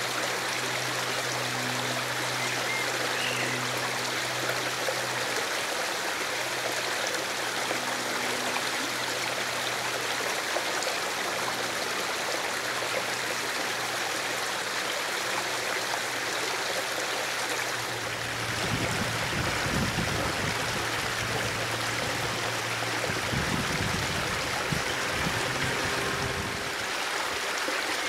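Steady rushing roar of the Airbus A380's jet engines on approach. From about two-thirds of the way through, a low irregular rumble of wind buffets the microphone.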